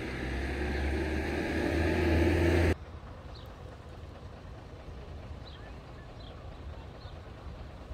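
Wind buffeting the microphone, a steady low rumble that grows louder and then cuts off abruptly a little under three seconds in. After it comes a quieter open-air background with a few faint, short high chirps.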